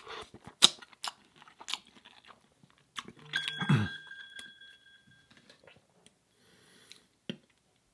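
Close-up chewing of a Beyond Burger: sharp crunches and wet mouth sounds, several crisp bites in the first two seconds. A short steady tone comes about three and a half seconds in.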